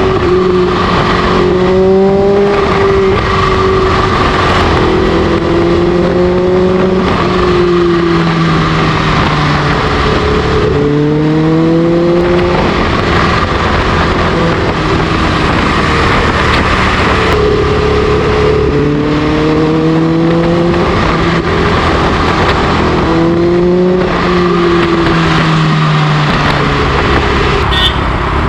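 Kawasaki H2's supercharged inline-four through an SC Project exhaust, pulling and easing off again and again while riding. Its note rises and falls several times, with strong pulls about two seconds in, around eleven seconds and around nineteen and twenty-three seconds.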